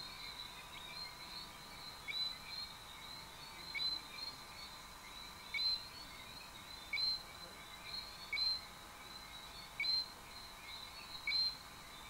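Forest animal chorus: a steady high chirring with a louder, short two-pitched chirp repeating about every one and a half seconds.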